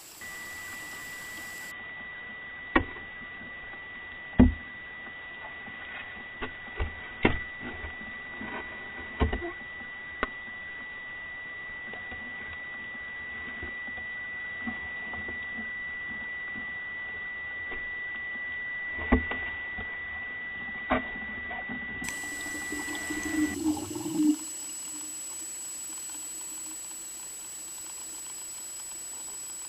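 Underwater sound picked up by an action camera in its waterproof housing. A steady high-pitched tone runs through most of it and stops near the end. Sharp clicks and knocks are scattered through it, bunched in the first ten seconds and again around twenty seconds in.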